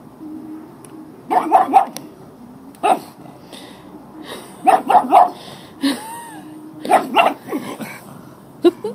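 Dog barking in short bursts, several times over, with a brief whine-like call in the middle. The owner takes the barking for guarding.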